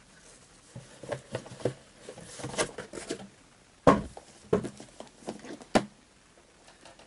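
Cardboard packaging being handled: small cardboard product boxes lifted out of a shipping carton, with rustling, scraping and a few sharp knocks, the loudest about four seconds in.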